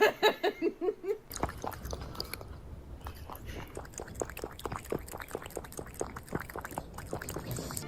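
A cat crunching dry cat treats: irregular crisp chewing clicks that run on for several seconds. The first second holds a quick run of short, laugh-like voiced sounds.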